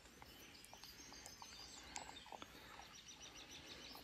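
Near silence: faint outdoor ambience with a few small ticks and rustles.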